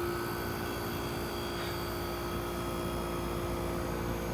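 Vintage 1960s GM window air conditioner running, its fan and AK reciprocating compressor giving a steady hum. The tones in the hum shift about three seconds in, as the unit comes up to running after the thermostat is turned up.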